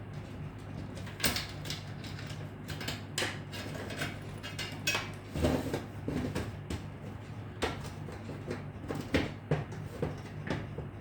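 Irregular light clicks and knocks of hardware being handled, with a couple of louder knocks about five and nine seconds in, over a steady low hum.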